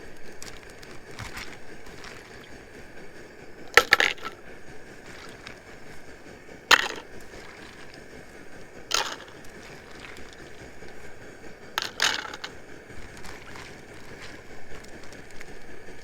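Several sharp clinks of hard objects knocking together, four separate ones at irregular intervals, the one near 12 s a quick double, over a steady faint background noise.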